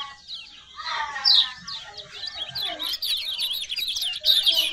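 Kecial kuning white-eyes twittering in fast runs of high, quick chirps that grow denser and louder over the last couple of seconds.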